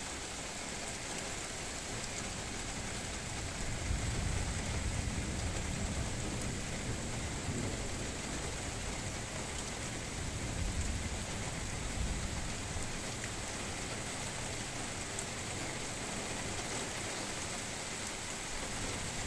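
Steady rain falling in a thunderstorm. About four seconds in, thunder begins a long low rumble that lasts several seconds before fading back into the rain.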